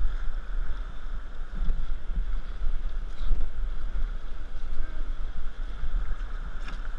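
Fast river current rushing and churning around a raft, a steady wash of water with a low rumble of wind on the microphone.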